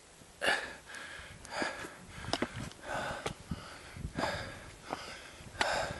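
A hiker breathing hard while climbing a rocky trail, about one loud breath a second, with footsteps scuffing on stone and dirt.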